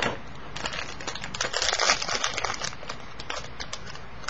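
Crinkling and rustling of a Dunny vinyl toy's packaging being opened by hand, with many small crackles and clicks and a thicker rustle midway.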